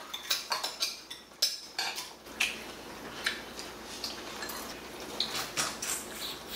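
Metal chopsticks and a spoon clicking and clinking against bowls and plates: a quick run of clicks in the first two seconds or so, then scattered single clinks.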